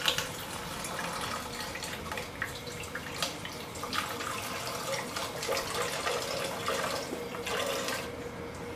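Tap water poured from a jug into the reaction tank of a water-fed hydrogen reactor, a steady splashing pour that breaks off near the end. It is the tank being filled to start the reaction.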